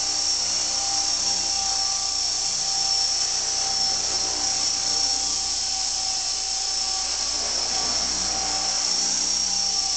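Heli-Max Axe CP collective-pitch RC helicopter hovering: a steady, high whine from its electric motor and gears, with the hum of the spinning rotor, holding an even pitch.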